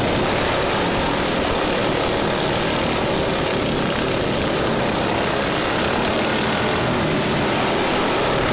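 Small engines of several racing lawn mowers running together as the pack laps the track, a steady, loud, buzzing drone.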